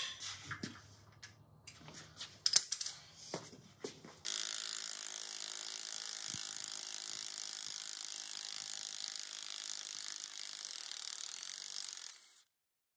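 Metal tools and parts clinking and clanking, with one sharp metal clank about two and a half seconds in. Then an air tool runs with a steady hiss for about eight seconds and cuts off suddenly.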